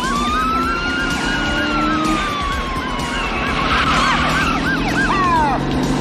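Police car sirens sounding together: one wailing slowly up and down while another yelps in quick rises about four times a second, over the steady drone of engines. Near the end a couple of steep falling sweeps cut across.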